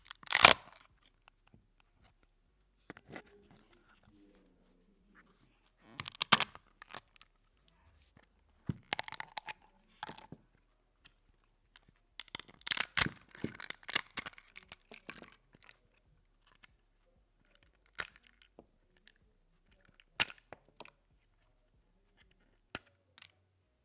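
3D-printed plastic support material being snapped and broken off a print, crackling and cracking in short bursts with quiet gaps between them. The longest run of crackling comes about halfway through, and a few single snaps follow.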